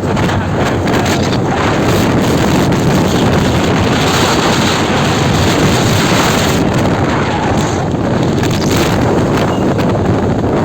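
Heavy wind noise buffeting the microphone of a camera on a motorcycle moving at speed, a steady loud rush with no clear engine note standing out.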